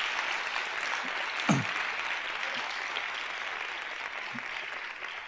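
Audience applauding, with one sharper, louder sound about a second and a half in, tapering off near the end.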